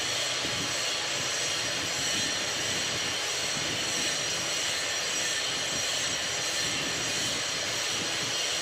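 Steady, unchanging rushing noise with faint high whining tones on top, like a running fan or distant machinery.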